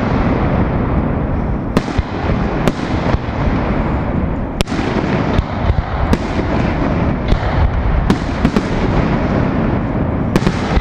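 Aerial fireworks display: shells bursting in quick succession, a continuous rumble of explosions with a sharper bang every second or two.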